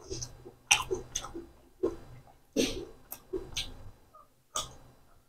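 Wet chewing and lip smacks of a person eating chicken liver curry with rice, in irregular sharp smacks about every half second.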